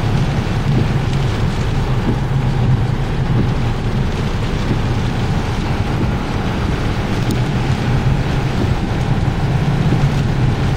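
Strong gale wind buffeting the microphone: a loud, steady rumbling rush, with the storm surf breaking behind it.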